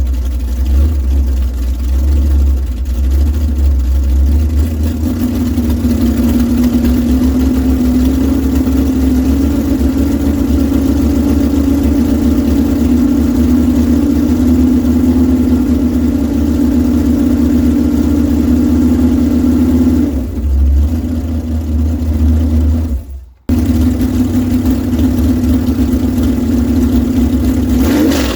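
An engine running steadily at a fairly even speed. The sound cuts out abruptly for a moment about three-quarters of the way through, then resumes unchanged.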